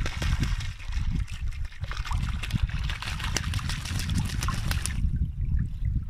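Water splashing and crackling as a white domestic duck thrashes and bathes at the surface, stopping about a second before the end. A low rumble of wind on the microphone runs underneath.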